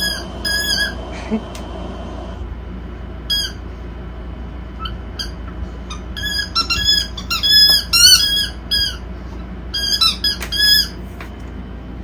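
Short high squeaks, a few on their own and then quick runs of several a second, loudest about two-thirds of the way through.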